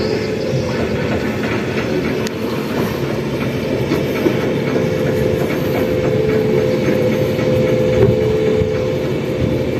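Diesel boat engine running steadily, a loud continuous drone with a wavering hum in it.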